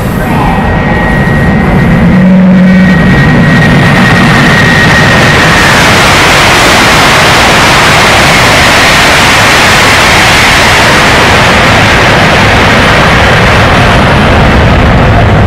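China Standardized EMU CR400AF/BF high-speed train passing through at 310 km/h: a loud, steady rush of air and wheel noise. A high whine holds and then drops slightly in pitch about five seconds in as the train goes by.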